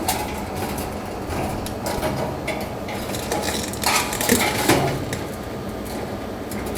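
Needle-nose pliers clinking and scraping against the dryer's sheet-metal housing and heating-element wire terminals, as the harness connectors are worked apart. The sound is made of scattered sharp clicks, the loudest about four seconds in.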